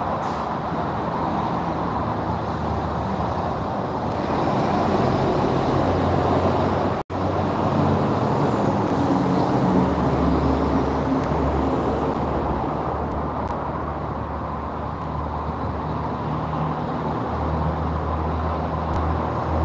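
Steady mechanical running noise with a low hum under a rushing hiss, cut by a sudden gap about seven seconds in.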